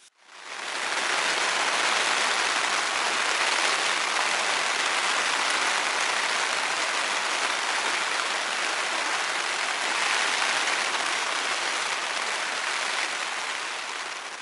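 Rain pattering steadily on the fabric of a small tent, heard from inside. It fades up in the first second and eases slightly near the end.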